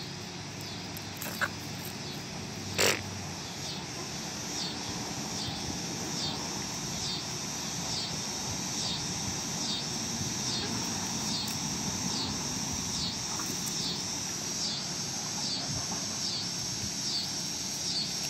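Backyard ambience: a high, even chirping repeated about twice a second, typical of a cricket or katydid, over the soft calls of foraging hens, with one sharp click about three seconds in.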